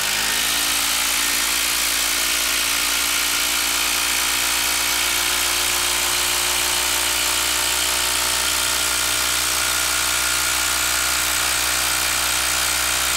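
Hilti 12V brushless cordless impact driver hammering continuously as it drives a long fastener into a wooden stump under heavy load. Its pitch sags a little in the first second, then it runs steadily without a break.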